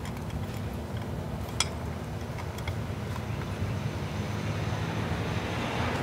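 A hand screwdriver driving a screw through a metal floodlight mounting bracket into the electrical box, giving a few faint clicks, one sharper about a second and a half in, over a steady low rumble.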